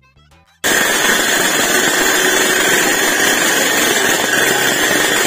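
Kids' mini dirt bike engine running loud and steady, cutting in suddenly about half a second in.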